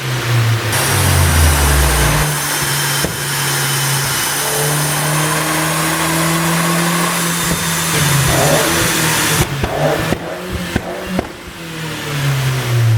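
Mercedes-Benz W204 C200 CGI's turbocharged four-cylinder engine being revved. It is held at high revs for several seconds, then falls back with a run of sharp pops and crackles from the exhaust on the overrun, the sound of a pop-and-crackle tune.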